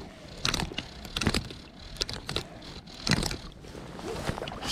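A fly reel being wound in by hand while playing a hooked fish: irregular clicks and knocks from the reel and its handling over a steady haze of wind and water.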